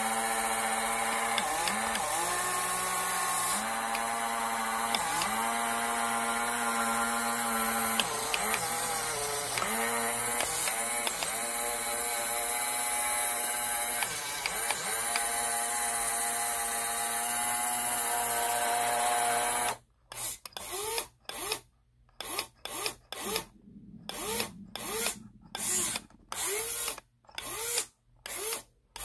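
Small electric drive motor of a working model gantry crane whining steadily as the crane travels along its track, its pitch dipping briefly now and then. About two-thirds of the way through it breaks into a quick string of short stop-start bursts, each rising in pitch as the motor spins up.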